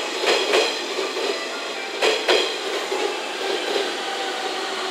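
JR West 115-series three-car electric train rolling past and pulling away. Its wheels clack in pairs over rail joints, twice in the first half and about two seconds apart, then give way to a steadier running noise with faint steady tones.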